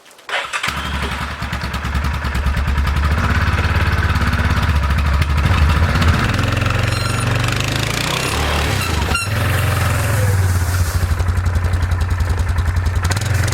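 A four-wheeler's (ATV's) engine starting about half a second in and then running, its speed rising and falling a little.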